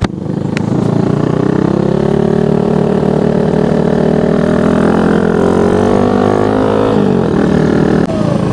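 Yamaha Sirius FI underbone motorcycle's small single-cylinder four-stroke engine under way, heard from the rider's seat: it pulls up in pitch over the first couple of seconds, holds a steady cruise, then drops in pitch about seven seconds in as the throttle is eased.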